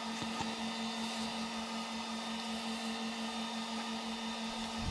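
Flashforge Guider 2s 3D printer's fans running with a steady, even hum over a soft hiss, the printer switched on with its platform heated.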